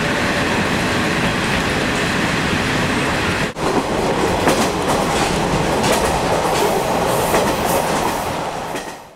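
Running noise inside a moving diesel railcar's passenger cabin, steady, with sharp clicks of the wheels over rail joints in the second half, fading out at the very end.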